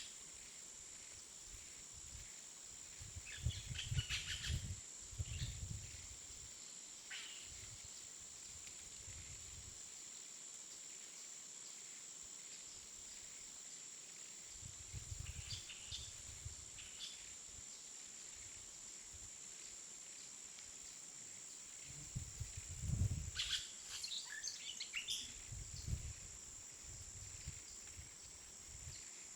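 Faint outdoor ambience: scattered short bird chirps in three brief clusters over a steady high whine, with low rumbles under the chirps.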